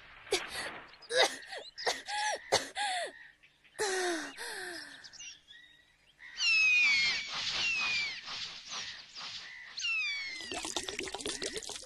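Jungle ambience: birds calling in repeated falling whistles and chirps over a steady high hum. Near the end, water starts splashing and hissing as it is poured out of a flask.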